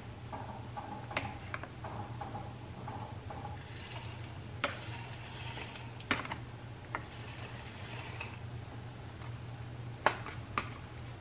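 Dry granola poured from a plastic scoop into a glass jar, a hissing rattle of clusters landing on yogurt that comes in two pours, with light clicks and knocks of kitchenware handling, the sharpest near the end.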